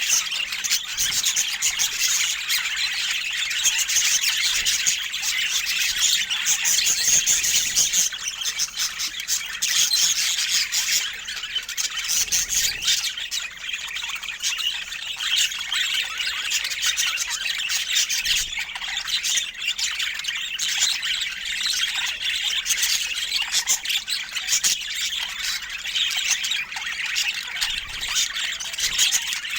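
Budgerigars chattering without a break: a dense, fast run of high chirps, warbles and squawks.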